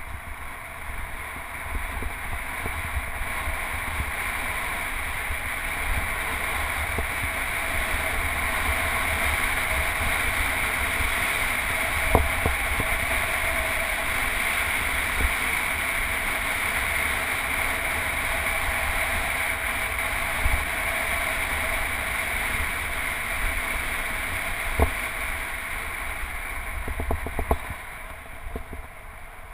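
Riding noise on a road bike: wind rushing over a handlebar-mounted GoPro and tyres running on a concrete path, a steady rush with a low rumble, with a few sharp knocks along the way. It eases near the end.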